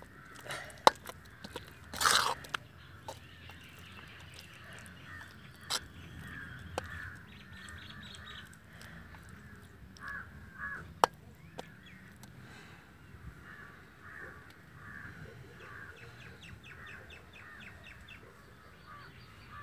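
Crows cawing over and over in the background, while a metal spoon stirs thick beetroot halwa in a metal pot and now and then knocks sharply against its side. The knocks are the loudest sounds, one about a second in and another about halfway through.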